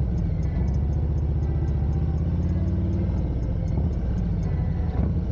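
Harley-Davidson Street Glide Special's Milwaukee-Eight 114 V-twin engine running at low road speed, a steady low engine note picked up by a camera mounted on the bike. The note shifts slightly about three seconds in as the bike slows.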